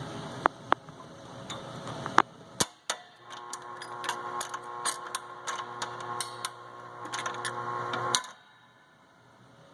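Seeburg LS-325 Select-o-matic jukebox record-changing mechanism: a few sharp clicks, then its motor hums for about five seconds with rapid, irregular clicking and ticking, and cuts off abruptly near the end. The mechanism is stuck on its track when it tries to switch records, which the owner puts down to lubrication hardened after decades of sitting.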